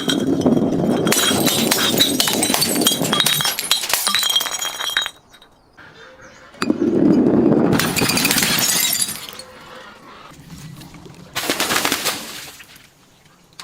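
Glass bottles being broken and crushed: crunching and cracking shards with clinking, ringing glass. There are three bouts, a long one of about five seconds, a second a moment later, and a shorter one near the end.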